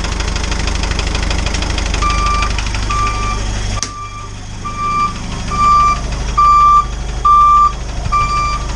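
Isuzu turbo diesel engine running at idle, with an electronic beeper starting about two seconds in and sounding a steady single-pitch beep roughly three times every two seconds. A sharp click near the middle.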